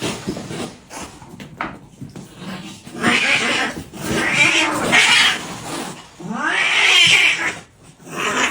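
Cat yowling, a series of about four long, drawn-out meows with pitch sweeping up and down, the loudest in the second half.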